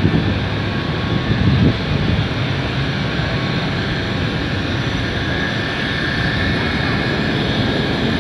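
Steady outdoor city background noise: a continuous rumble of road traffic, with a small bump about a second and a half in.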